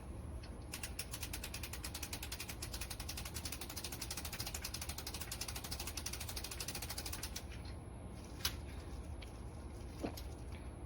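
Patio umbrella crank mechanism ratcheting, a rapid, even run of clicks for about seven seconds as the crank is turned. Then two single clicks.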